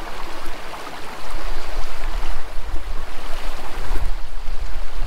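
Wind buffeting the microphone outdoors: a rough rushing noise with a heavy, gusting low rumble that grows stronger about a second in.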